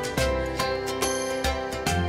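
Background music with a steady beat, bass notes and a bright melody.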